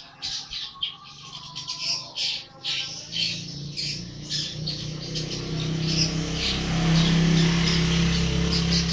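Young long-tailed shrike (cendet) calling busily in quick, harsh, chattering notes. From about three seconds in, a low steady hum builds under the calls and becomes the loudest sound.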